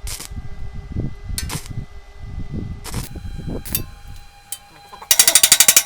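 Stick (electrode) arc welding on thin stainless steel: about five seconds in the arc strikes and runs with a loud, rapid crackle. Before it there are low rumbling handling noises and a few sharp clicks.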